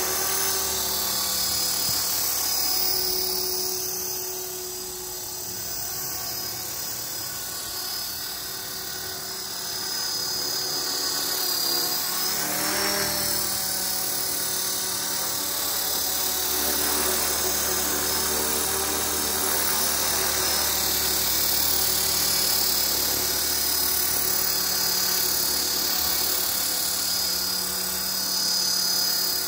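Esky Belt CP 450-size electric RC helicopter flying low with Align carbon main blades: a steady high motor-and-gear whine over the rotor hum. It drops a little in loudness for a few seconds, and its pitch swells briefly about halfway through.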